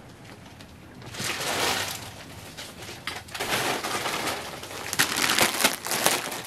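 Suit fabrics rustling and crinkling as they are handled and laid on the counter, in several bursts, loudest near the end.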